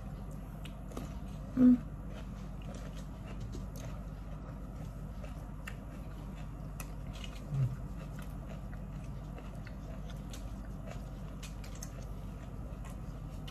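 Close-up eating sounds: chewing and biting with many small wet clicks and crunches, over a steady low hum. A short, loud vocal sound comes about two seconds in, and a fainter low one near eight seconds.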